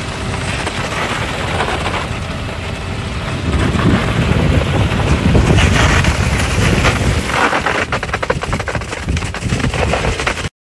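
Concrete pump running while wet concrete gushes from the pump hose into insulated concrete formwork. A loud, steady machine noise grows louder a few seconds in, with rapid knocking in the later seconds, and cuts off abruptly near the end.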